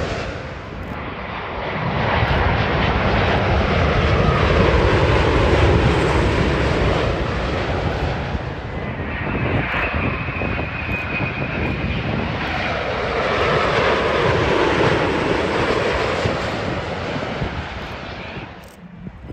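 Jet airliners passing low overhead on landing approach, one after another: first a four-engined Airbus A380, then a Boeing 787. The engine roar swells and fades with each pass, and a steady high whine is heard about halfway through.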